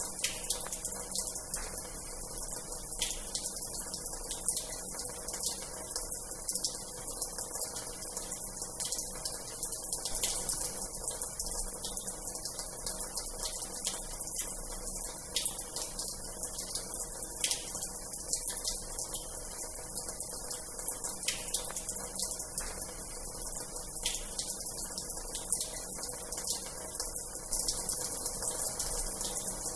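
Water running from the tap of an old washhouse: a steady, hissy, splashing flow full of tiny crackles, unchanging throughout.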